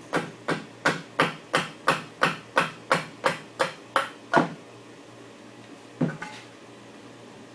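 Rapid, even blows of a striking tool on the dowelled joints of a wooden chair, about three a second for four seconds, then a single knock about six seconds in, as the joints are knocked apart.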